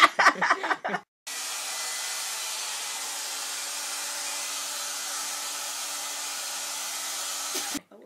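Brief laughter and talk, then a handheld hair dryer running: an even hiss of blown air with a faint steady hum, starting suddenly about a second in and cutting off just before the end.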